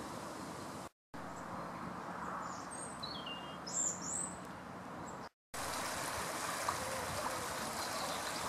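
Steady outdoor background noise, broken twice by brief silent cuts, with a bird giving a few short falling chirps about three to four seconds in. For the last three seconds a fast-flowing stream rushes.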